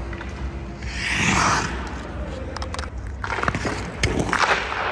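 Hockey skate blades scraping across ice in a swell about a second in, then a run of sharp clicks and knocks in the second half, over a steady low hum.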